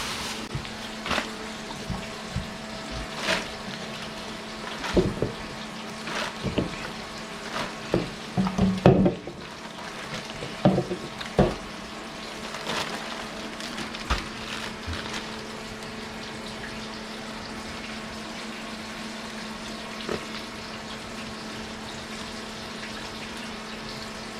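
Kitchen tap running steadily into a sink, with knocks and clatter of things being handled in the first half that die away after about fifteen seconds.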